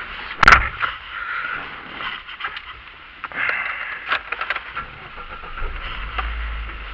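Camera handling noise inside a car: a sharp knock about half a second in, then rubbing and scattered clicks as the camera is moved about, with a low rumble near the end.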